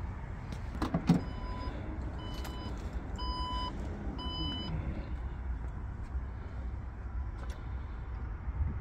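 A thump about a second in, then the Porsche Macan's power liftgate gives four warning beeps, about one a second, while its motor whirs as the liftgate opens.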